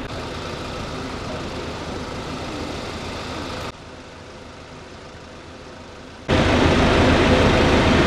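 Steady rushing outdoor background noise with no clear single source; it drops abruptly to a quieter level about four seconds in, then jumps to a much louder rush near the end.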